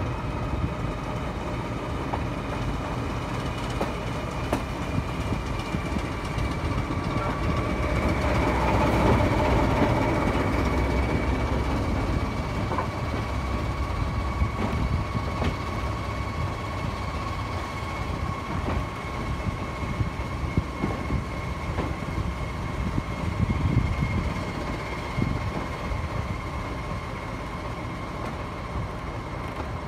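Diesel-hauled heritage passenger train on the move, heard through an open carriage window: the steady rumble of the coach running on the rails, with a steady whine from the train that drifts slowly lower. It grows louder for a few seconds about eight seconds in.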